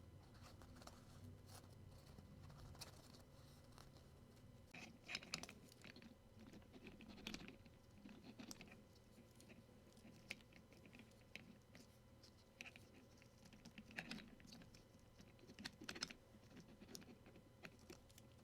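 Faint, irregular plastic clicks and light rustling as mechanical keyboard parts are handled, with a few louder clusters of clicks.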